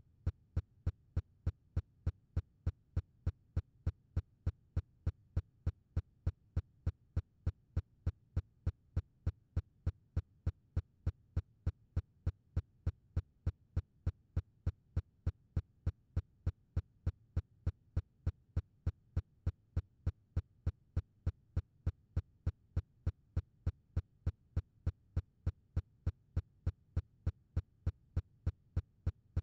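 Rapid, evenly spaced clicking at about three clicks a second, every click at the same level.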